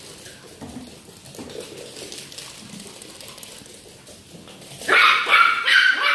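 Small dogs playing on a hard floor: light scuffling for most of the time, then near the end a run of loud, high-pitched yapping barks.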